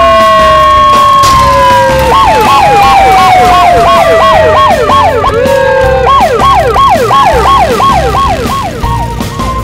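Cartoon sound effects: long falling whistle tones, then from about two seconds in a fast, repeating siren yelp at about three sweeps a second, over background music with a steady low beat.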